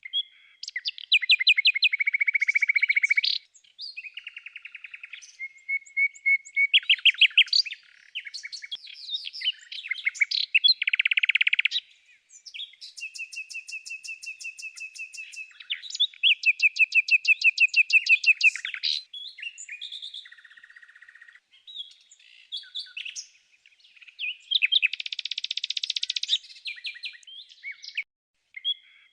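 A songbird singing a long, varied song of rapid trills, runs of repeated notes and whistled phrases, with short pauses between phrases.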